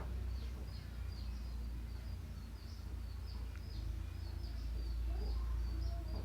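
Small birds chirping, many short high calls over and over, over a steady low rumble of background noise.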